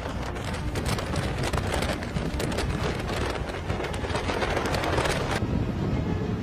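Storm wind and rain, a dense noisy rush with many crackles and clatters. About five seconds in it changes abruptly to a duller, lower rush.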